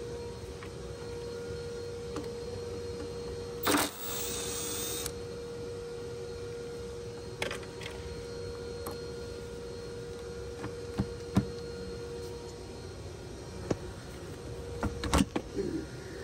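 Hand tools working on metal bolts in a car's engine bay: scattered clicks and knocks, with one loud rasping burst lasting about a second around four seconds in, over a steady hum.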